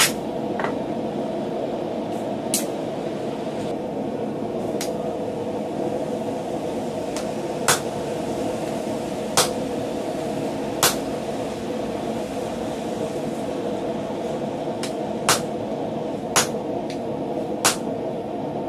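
Hammer blows on a hot steel bar resting on a steel swage block: about nine sharp, separate strikes spaced irregularly, a second to several seconds apart, over a steady rushing background noise.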